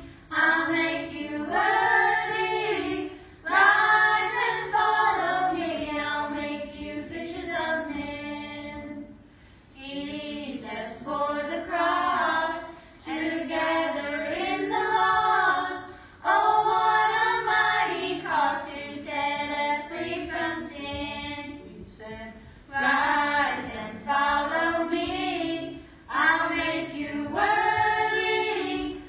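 A group of children singing a worship song together, phrase after phrase with short pauses between.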